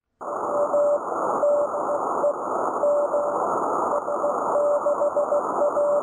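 Morse code (CW) tone keyed in dots and dashes, sent through a hiss of radio static that starts just after the opening.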